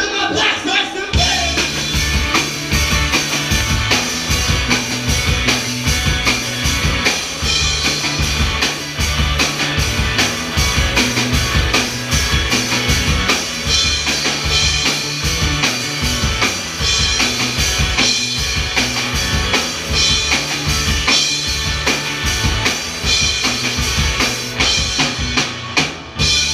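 Live rock band playing: electric guitars and bass over a drum kit driving a steady beat of kick and snare hits.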